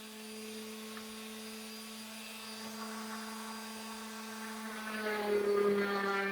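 Electric sander running steadily with a sanding net on pine, a constant motor hum.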